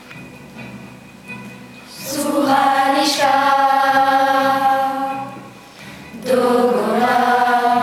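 A class of schoolchildren singing together as a choir. It starts softly, then swells about two seconds in into a loud held note. The sound eases near six seconds and comes back in loudly with a rising phrase.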